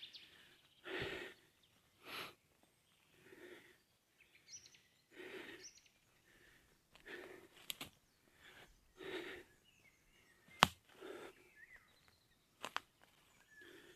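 Heavy breathing of an out-of-breath hiker after a steep climb, a soft breath every second or two. A few short sharp clicks sound between the breaths.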